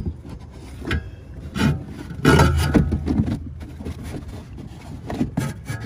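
Felt wheel-arch liner being pulled back by hand, rubbing and scraping against the wheel arch in irregular rustling scrapes, loudest a little after two seconds in.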